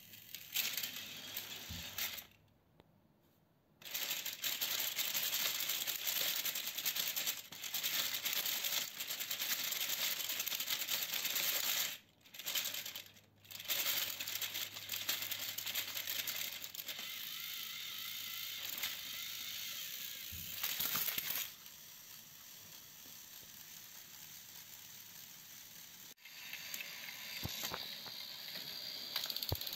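Battery-powered Plarail toy trains running along plastic track: a high whirring of small motors with a busy rattling and clicking of plastic wheels and cars over the track joints, dropping away twice for a moment.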